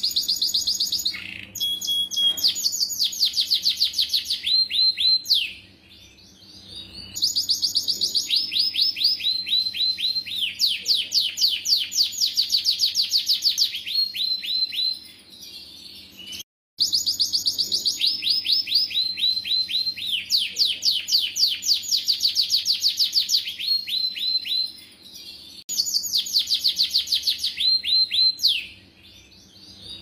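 Domestic canary singing loud, long bouts of rapid trills and rolls: fast runs of repeated high notes and falling sweeps, each bout lasting a few to several seconds, with short pauses between them.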